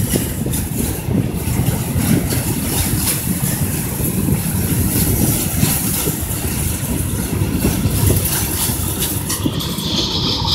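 Covered hopper cars of a Union Pacific freight train rolling past: a steady rumble of steel wheels on the rails, with repeated clicks and clatter from the wheels and cars.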